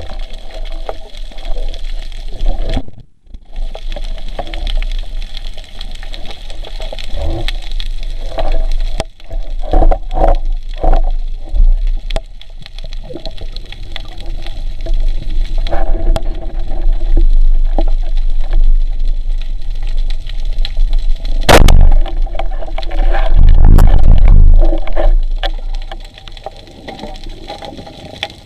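Water sloshing and gurgling around the camera, over a continuous low rumble, with scattered clicks and a sharp knock about two-thirds of the way through.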